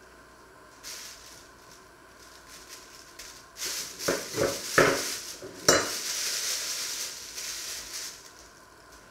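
Thin plastic film crinkling and rustling as it is peeled off a strip of raw beef, with a few sharp crackles and knocks against the wooden cutting board in the middle.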